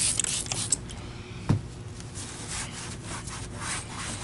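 Rag rubbed back and forth over a plastic vacuum tool caddy, wiping it clean in repeated scratchy strokes, with a single knock about one and a half seconds in.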